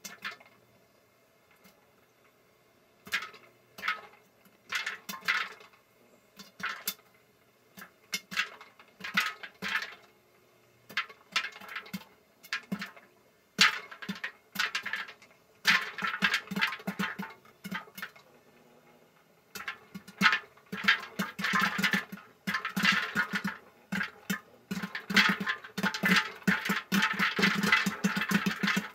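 Popcorn kernels popping in hot oil inside an electric stirring popcorn popper under a plastic dome. It starts as scattered single pops about a second apart and builds to a rapid, dense run of pops in the last several seconds.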